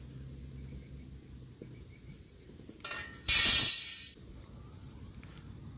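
A sudden loud crash about three seconds in, with a bright clattering tail that dies away within about a second, over a faint low hum.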